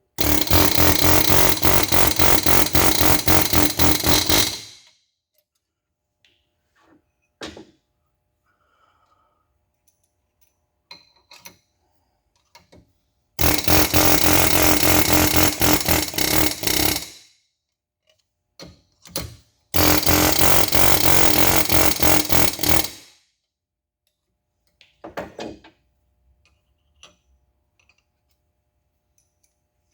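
Pneumatic air chisel on low setting hammering new valve guides into an Oldsmobile V8 cylinder head through a driver and washer. It comes in three loud bursts of rapid impacts, each a few seconds long, with light clinks and knocks of handling in between.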